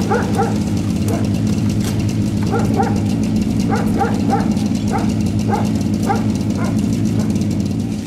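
A dog barking over and over, in short single barks and quick runs of two or three, over the steady low hum of an engine running.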